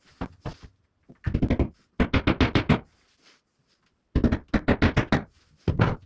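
Several short bursts of rapid knocking, about ten strikes a second, with pauses between the bursts.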